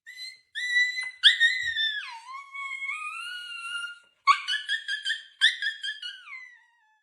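A dog's high-pitched whining howl: one long wavering note that dips and slowly climbs, then a quick series of short yelping notes that slide down near the end.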